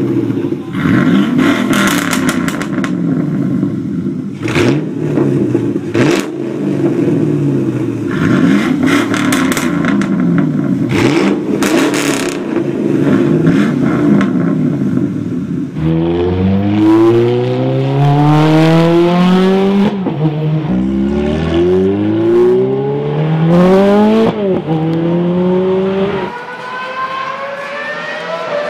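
Two straight-piped V8s, a 2005 Chevy Silverado Z71 5.3 and a 2001 Ford Mustang GT, revving over and over, their pitch rising and falling, with a few sharp cracks. About sixteen seconds in, the sound changes to another engine revving hard in rising sweeps that drop back several times. Near the end a Formula One car's engine comes in as a high whine that rises steadily.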